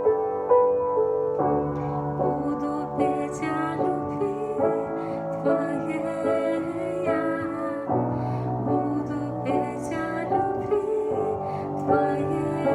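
Piano playing slow, sustained chords of a worship song.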